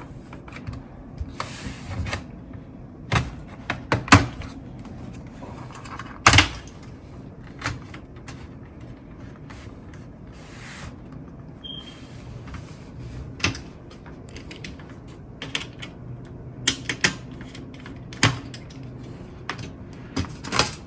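Plastic bottom case of an Alienware M17 R3 laptop being pried off with a plastic opening tool: a series of sharp, irregular clicks and snaps as the case's clips pop loose one after another, with brief scraping of the tool along the seam.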